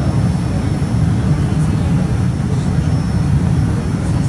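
Cabin noise of a Boeing 787-9 taxiing at low power: a steady low rumble from its Rolls-Royce Trent 1000 engines and the rolling airframe, with a faint thin high whine above it.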